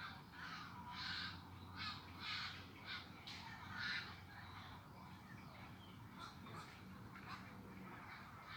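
A colony of pond herons (blekok) giving many harsh, croaking squawks that overlap, loudest in the first four seconds and fainter after.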